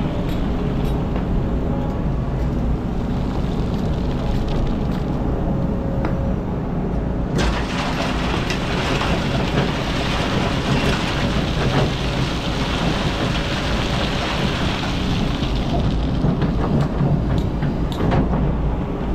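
Kobelco hydraulic excavator's diesel engine running steadily under working load. About seven seconds in, a bucketload of sand and gravel pours into a steel dump-truck bed for about eight seconds, a loud hiss with scattered clicks of stones.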